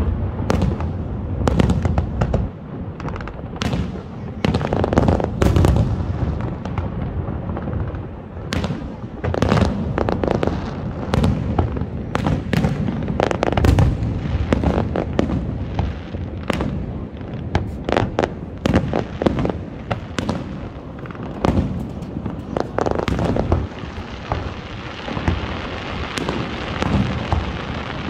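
Low- and mid-altitude fireworks going off in a rapid, continuous run of bursts, pops and crackles, with deep booms among them. A hissing crackle builds toward the end.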